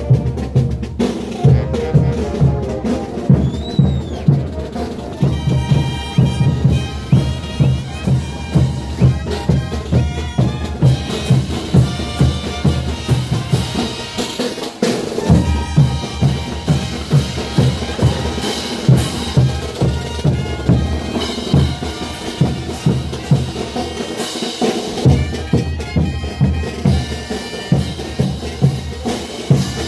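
Bolivian brass band (banda de bronces) playing carnival dance music: bass drum and snare drum keep a steady beat under a brass melody. The drums drop out briefly twice, about halfway through and near the end.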